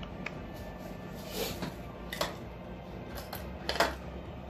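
Small nail tools and brushes being handled and set down on a work table: a handful of light clicks and knocks, the sharpest a little past two seconds in and two close together near the end, over a low steady hum.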